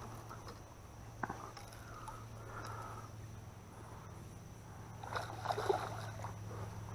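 Water sloshing around a fishing boat under a steady low hum, with a sharp knock about a second in and a brief louder burst of movement about five seconds in.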